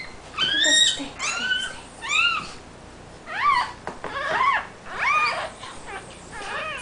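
Newborn puppy squealing in a run of short, high cries that rise and fall in pitch, about one or two a second, while its mother licks it clean just after birth.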